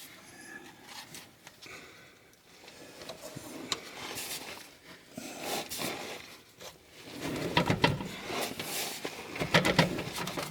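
Metal scraping and clicking as a snowblower's PTO drive shaft is worked onto the tractor's PTO shaft with its locking collar pulled back. It starts faint, and from about seven seconds in a louder run of knocks and clicks follows as the coupler is pushed home and latches.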